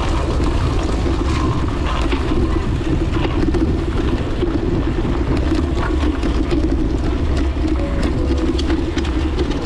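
A triathlon bike rolling over cobblestones, heard close up as a steady rattling rumble with many small irregular clicks.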